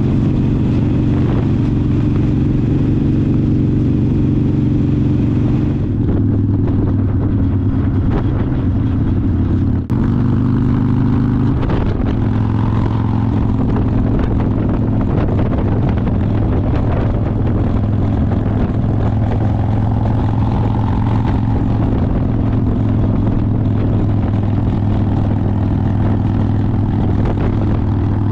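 Harley-Davidson V-twin motorcycle engine running at a steady road speed, heard from the bike with wind and road noise. The engine note shifts a couple of times about ten seconds in.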